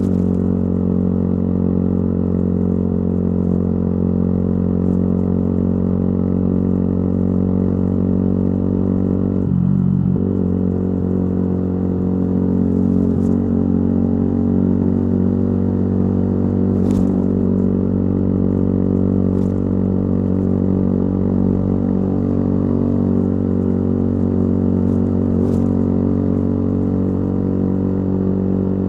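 Yamaha YZF-R125's single-cylinder four-stroke engine running through a modified exhaust, held at steady revs. The engine note breaks and drops briefly about ten seconds in.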